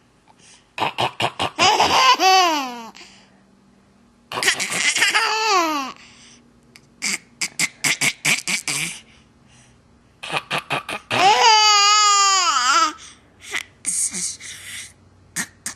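Baby laughing in about five bouts. Each is a quick run of breathy giggles that ends in a high squeal falling in pitch; the longest squeal comes about two-thirds of the way in.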